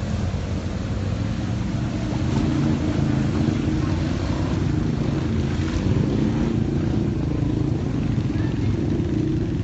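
Off-road vehicle's engine running steadily under load, a little louder after about two seconds, over a constant rushing noise.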